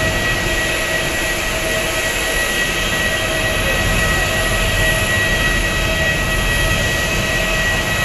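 Jet aircraft engines running with a steady high-pitched whine over a broad rushing noise.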